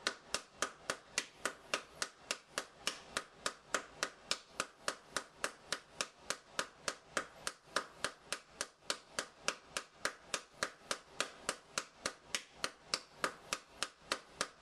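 Paddleball being played: the rubber ball on its elastic string smacks the paddle in a steady, even rhythm of about three sharp hits a second, with no miss.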